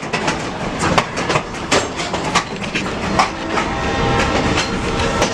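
Passenger train rolling along the track, its wheels clicking over the rail joints against a steady rumble, with a faint steady whine coming in about four seconds in.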